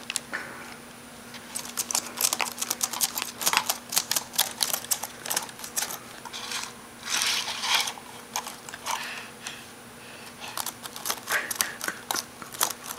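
A baby's hands tapping and slapping the keys of a laptop keyboard, making irregular clicks that come in quick clusters with short pauses between.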